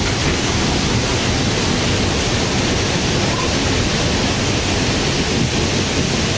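Storm of strong wind and heavy rain, a loud steady rushing noise with a heavy low rumble.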